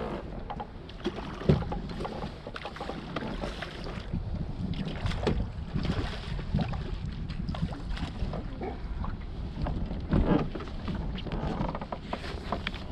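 Wind buffeting the microphone and water lapping against a small fishing boat's hull, with scattered knocks and clicks of gear being handled in the boat.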